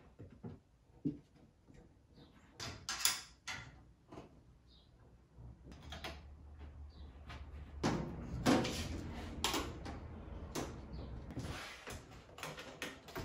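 Tape measure being handled against the underside of a wooden cabinet during measuring: scattered clicks and knocks, with a louder, longer stretch of scraping and handling noise from about eight to eleven seconds in.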